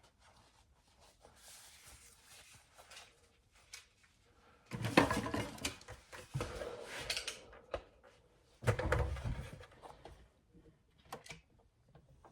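Handling noises in a woodworking shop: irregular knocks, clatter and rustling, with two louder stretches of knocking and scraping about five and nine seconds in.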